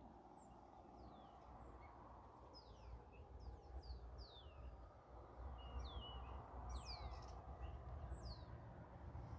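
Small birds chirping, many quick falling chirps, over a faint low rumble of passing cars that grows louder in the second half.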